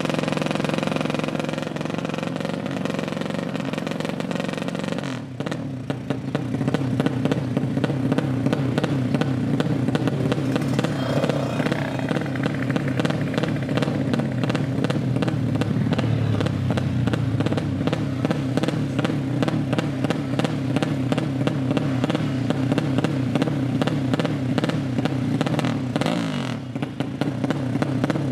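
200cc motorcycle engine running steadily at idle with fast, even firing pulses, dipping briefly about five seconds in and again near the end.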